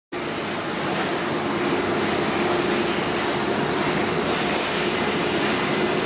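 Factory machinery running: a steady, even noise with a faint hum underneath.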